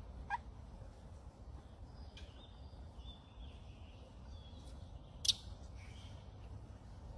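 Faint, high, short animal chirps and squeaks over a low background rumble, with one sharp click about five seconds in.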